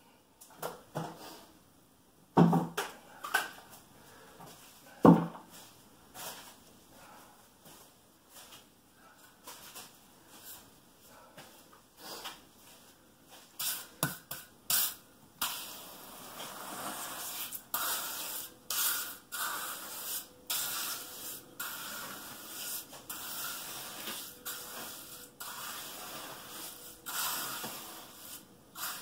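A hand trowel scraping and spreading wet Quikrete countertop concrete across the mold in repeated strokes, which come thick and steady from about fifteen seconds in. Two sharp knocks come about two and a half and five seconds in, the loudest sounds here.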